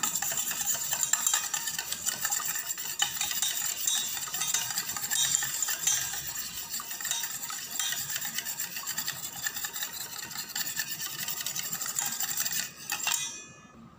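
Wire whisk beating an egg in a stainless steel bowl: quick, continuous strokes of the wires scraping and clinking against the metal, stopping shortly before the end.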